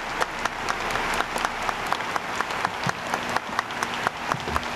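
A large crowd applauding steadily, a dense wash of clapping with individual claps standing out sharply.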